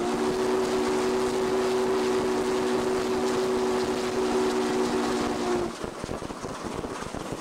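Norfolk & Western 611's chime steam whistle blown in one long, steady chord of several tones, cutting off about five and a half seconds in. Steady running noise of the steam locomotive underneath.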